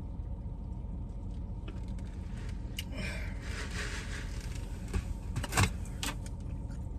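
Steady low rumble inside a car cabin, with rustling and scattered clicks from things being handled, and one sharp knock about five and a half seconds in.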